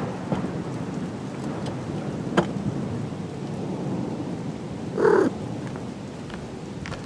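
A domestic cat gives one short meow about five seconds in, over a steady hiss of rain. A single sharp tap sounds about two and a half seconds in.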